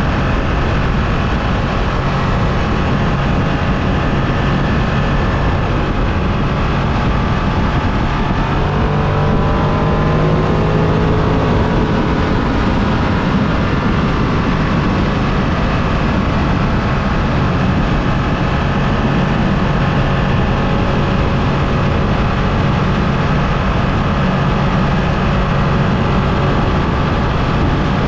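Ducati Streetfighter V2's V-twin engine running steadily under way, heard from the bike with dense wind and road noise. Its note rises briefly about a third of the way through.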